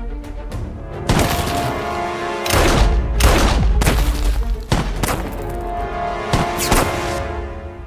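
Tense film-score music with about six loud bangs or impacts struck over it, each with a short ringing tail.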